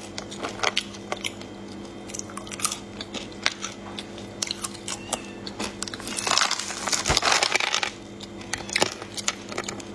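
Crunchy chewing of a walnut-kernel snack, mixed with clicks and rustles of fingers picking pieces out of a plastic jar. The loudest, densest crunching comes about six seconds in and lasts about two seconds.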